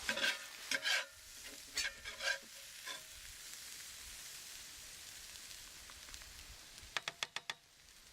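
Spoon scraping hot browned ground beef out of a cast iron skillet, the meat sizzling. Near the end comes a quick run of about six sharp taps.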